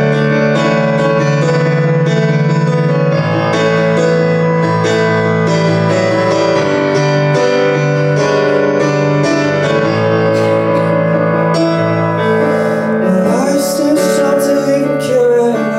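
Live piano playing an instrumental passage of held chords, with a voice coming in near the end.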